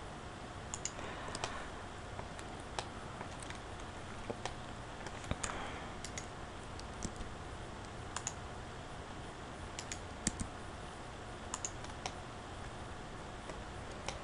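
Computer keyboard keys and mouse buttons clicking, about a dozen sparse, irregular clicks over a faint steady hum and hiss.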